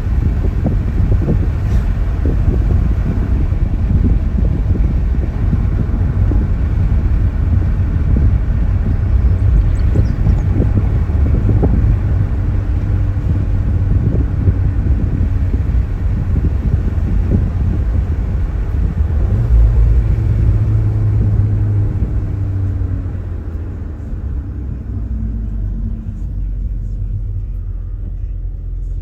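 2024 Volkswagen Golf R being driven: steady low road and engine rumble that eases somewhat about three-quarters of the way through.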